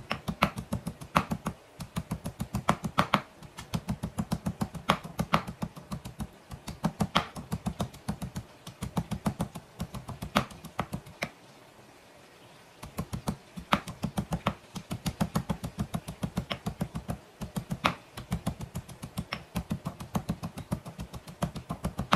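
Stone pestle pounding garlic cloves in a stone mortar: rapid sharp knocks, several a second, with a short break a little past halfway before the pounding resumes.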